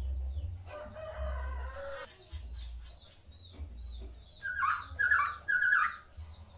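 Caged white-rumped shama (Medan murai batu) singing a varied song of short high whistles and mimicked calls. About a second in there is a rooster-like crow, and near the end three loud falling notes.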